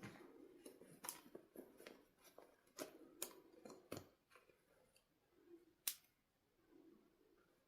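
Quiet handling noise: irregular soft clicks and taps of small objects being handled, the sharpest a single click about six seconds in.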